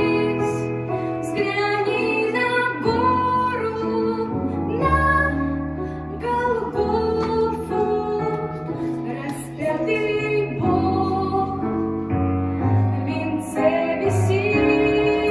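A Christian song with a woman singing the melody over instrumental accompaniment.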